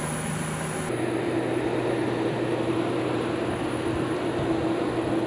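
Steady hum of aircraft running at the airport, with a constant mid-pitched tone over a low drone. The sound changes abruptly about a second in.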